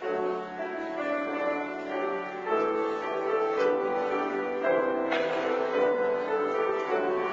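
Piano playing slow chords and a melody, starting abruptly at the beginning, with fresh notes struck every second or so.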